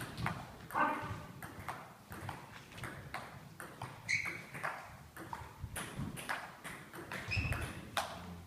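Table tennis ball clicking as it is struck by the bats and bounces on the table during a rally, in an irregular run of sharp ticks. A couple of short high squeaks come about four seconds in and again near the end.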